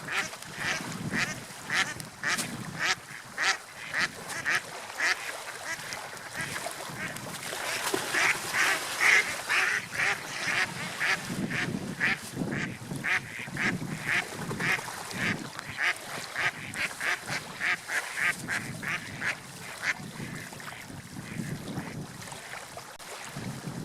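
Rapid series of short animal calls, repeated two to three times a second, loudest and busiest in the middle.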